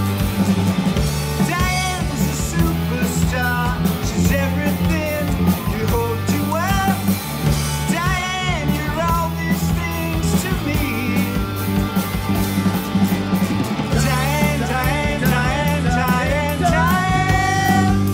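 Rock band playing a song: drums, electric bass and electric guitar, with a melody line that bends in pitch.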